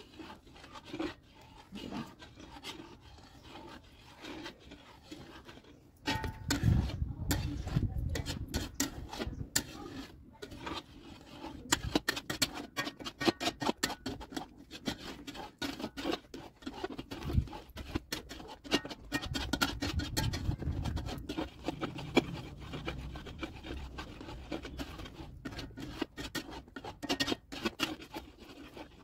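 Long metal spatula scraping and stirring around the inside of a steel kadhai of thick, reducing milk: a rapid, uneven run of metal-on-metal scrapes and taps, louder from about six seconds in.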